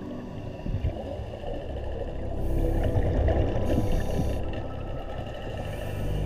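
Underwater sound from a scuba diver's camera: a steady low rumble with three short hissing bursts of exhaled regulator bubbles, the longest about four seconds in.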